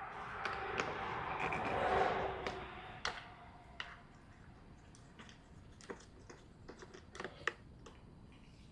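Hand tools clicking and tapping during work on a chainsaw. A louder stretch of rustling and rattling fills the first few seconds, then comes a scatter of sharp, irregular clicks.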